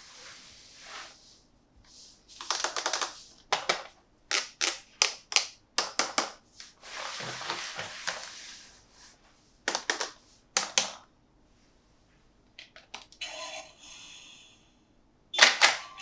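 Toy packaging being handled and opened: a string of sharp plastic clicks and taps, with a longer stretch of crinkling or tearing in the middle and a loud double click near the end.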